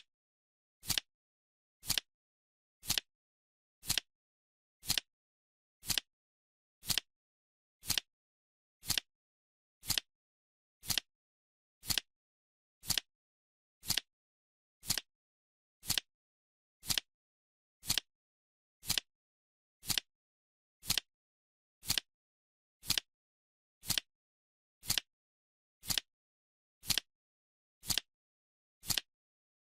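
Clock ticking sound from a countdown timer: one short, sharp tick each second, evenly spaced, with silence between.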